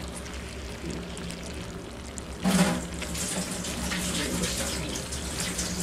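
A serving spoon scooping saucy stir-fried vegetables in a stainless steel electric skillet, with wet sliding and scraping sounds. There is a louder burst of scooping about two and a half seconds in, over a steady low hum.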